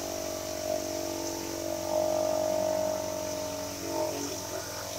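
Gas pressure washer engine running at low throttle with a steady drone, while a DeWalt rotating surface cleaner sprays onto a wet wooden deck with a steady hiss. The drone swells slightly for about a second, two seconds in.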